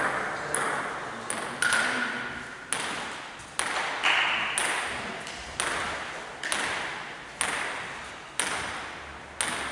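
Table tennis ball bounced over and over, about once a second, each sharp tap ringing out in the echo of a large hall.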